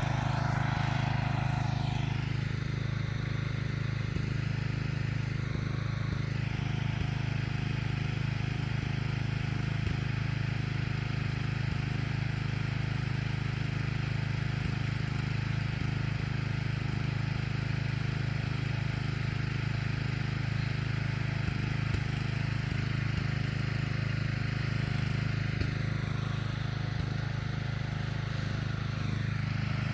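Small riding lawnmower engine running steadily at a constant pitch, with no change in speed.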